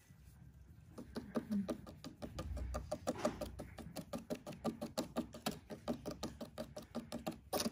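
A hand briskly rubbing and scratching a cat's fur, a quick run of rustling strokes several times a second, starting about a second in.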